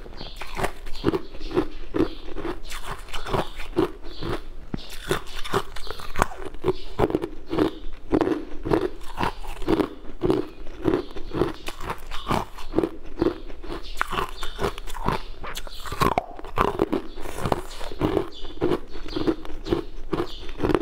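Frozen coloured ice cubes being bitten and chewed: crisp, crunching cracks of ice breaking between the teeth, coming two or three times a second.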